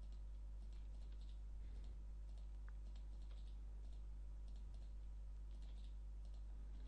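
Faint, scattered clicks of a computer mouse over a steady low electrical hum.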